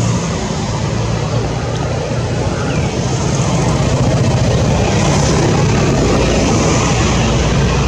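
A steady low motor drone under a constant wash of noise.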